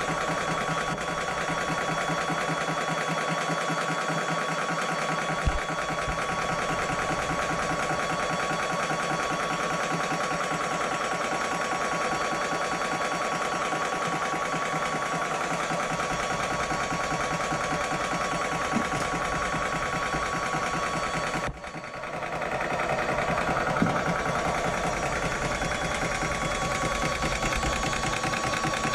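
Hatsan portable PCP air compressor running steadily with a fast, even mechanical pulse and a steady whine, filling the air rifle's tank; the sound dips briefly about three-quarters of the way through, then carries on.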